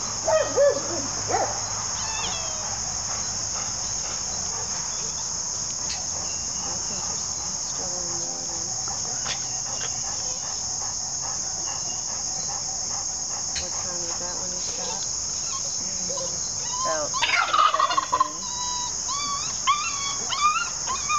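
Puppy held on its back in a restraint test, struggling and crying out in a few short whines near the start and a run of loud, wavering yelps and whines near the end. A steady chorus of crickets runs underneath.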